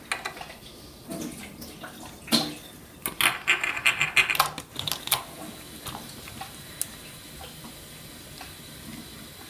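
Glue-and-borax slime being squished and pressed by hands, giving a run of quick wet clicks and squelches, densest a few seconds in, then only scattered clicks.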